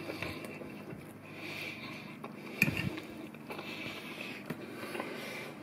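Fork scraping and clinking against a plate while scooping up curry and rice, with a short cluster of clicks about two and a half seconds in.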